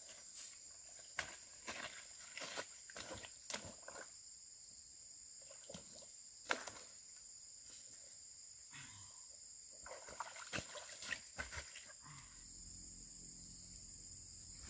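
Steady high-pitched chorus of insects, with scattered short clicks and rustles over it.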